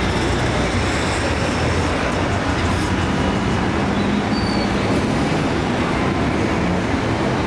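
Heavy road traffic: a steady rumble of bus, truck and car engines.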